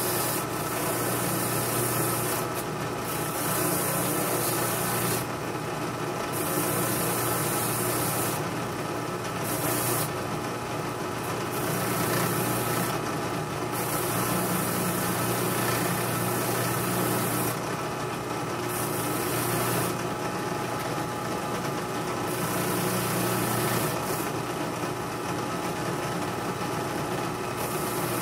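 Benchtop drill press motor running steadily, with a high scraping hiss that comes and goes every few seconds as metal is pressed against the spinning abrasive attachment in its chuck.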